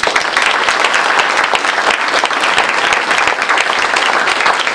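Audience applauding, many hands clapping at once; it starts suddenly and holds steady.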